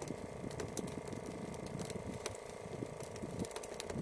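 A boat's engine idling steadily, with irregular low thumps and sharp clicks over the hum.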